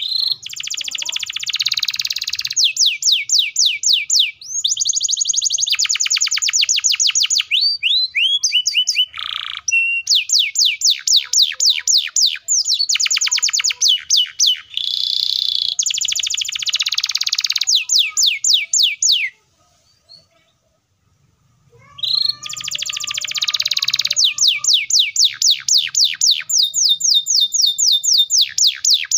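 Canary singing long, fast, tightly packed trills (rolls) of rapidly repeated high notes, phrase after phrase. It breaks off for about two seconds roughly two-thirds of the way through, then resumes with another long roll.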